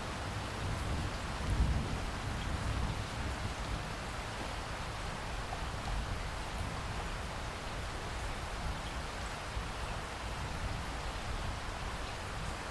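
Steady rain falling, with a low rumble of distant thunder that swells briefly about a second and a half in.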